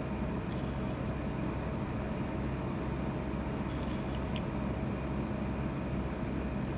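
Steady low machine hum, with a few faint clicks of a knife on a plastic cutting board as a Pacific saury is beheaded and gutted, about half a second in and again around four seconds in.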